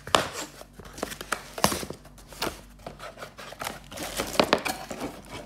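Cardboard packaging being handled: the inserts of a cardboard box lifted and shifted, giving irregular scrapes, rustles and sharp knocks.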